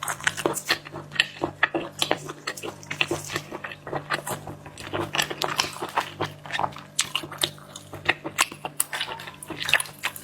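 Close-up wet eating sounds of sauced shellfish: chewing, slurping and lip-smacking as many quick, irregular clicks and squelches.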